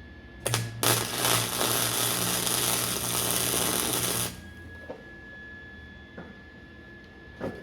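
Stick-welding arc burning on scrap steel for about four seconds, starting and stopping abruptly.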